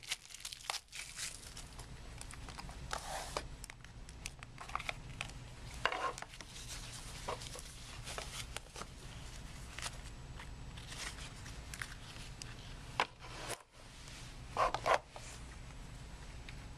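A trading-card pack being opened by hand: the wrapper crinkles and tears, with scattered light clicks and rustles as the cards are handled.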